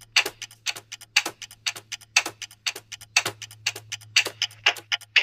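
Clock-ticking sound effect for a quiz countdown timer: a sharp tick about once a second with softer ticks between, over a faint steady low hum.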